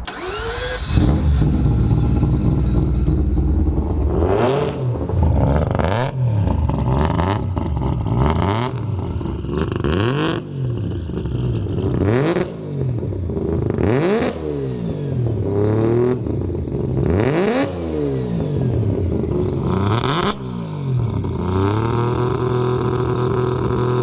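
Turbocharged three-rotor rotary engine in a Mazda RX-7 free-revved while parked: about eight sharp blips, each rising and falling back, roughly one every two seconds. Near the end it settles to a steady idle.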